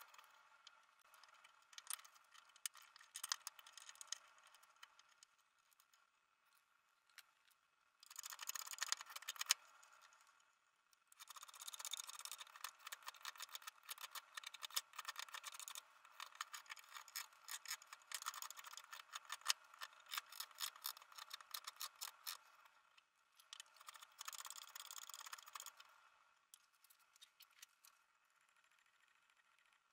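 Hook knife shaving the inside of a green birch cup, heard as bursts of quick scraping, clicking cuts, the longest run in the middle.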